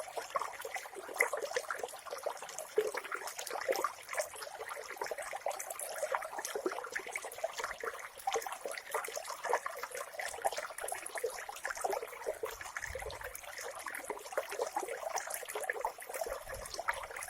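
Clear mountain water trickling and splashing steadily, a continuous run of small irregular splashes.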